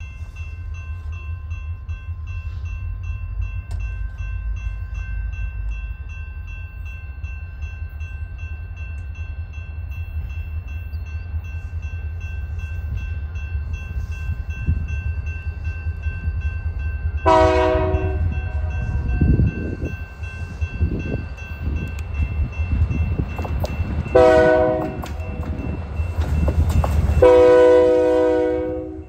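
Diesel freight locomotives of an Indiana & Ohio Railway train approaching with a steady low engine rumble that grows louder. The air horn sounds three times in the second half: two short blasts and a longer last one that cuts off.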